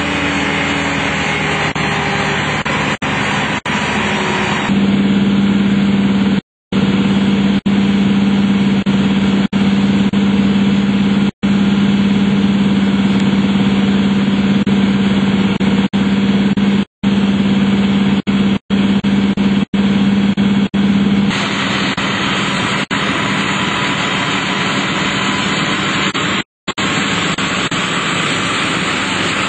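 A fire engine's motor running steadily, driving the pump that feeds a hose line. A strong steady hum comes in sharply about five seconds in and cuts off about 21 seconds in. The sound drops out completely for an instant several times.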